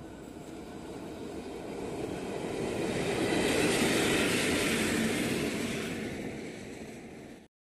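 Two coupled WAG-7 electric locomotives running light past at speed, with wheel and rail noise. The noise swells to its loudest about four seconds in as they go by, fades as they recede, then cuts off abruptly near the end.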